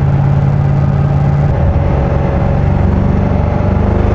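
Car engine and exhaust droning steadily, heard from inside the cabin while driving on the road; the engine note changes about a second and a half in.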